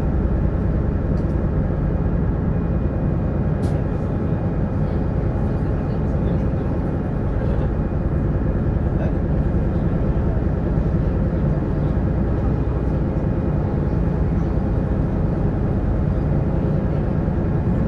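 Sightseeing boat's engine running steadily underway, a constant low rumble heard on board.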